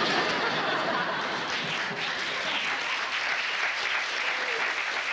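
Live studio audience applauding a punchline, a dense steady patter of clapping.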